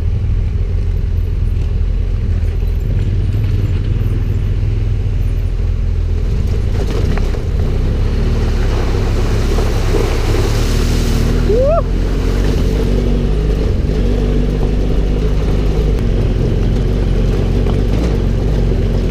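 Adventure motorcycle engine running steadily under way, a constant low drone. A rush of noise swells and fades around ten to twelve seconds in, with a short rising whistle-like tone near its end.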